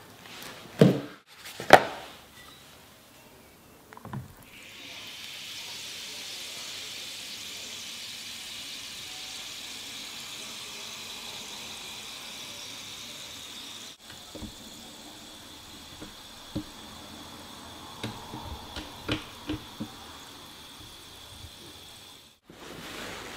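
Cheap 180/320-grit combination whetstone soaking in a plastic tub of water, fizzing with a steady high hiss as air bubbles escape from its pores while it saturates. A few sharp clicks of handling near the start.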